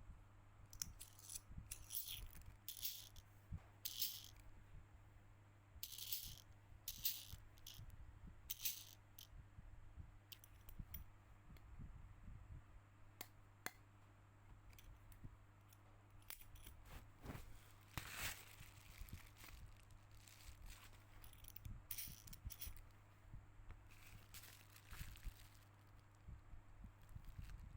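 Faint, irregular short scraping and clicking sounds of small parts and tools being handled during phone repair work, over a steady low hum.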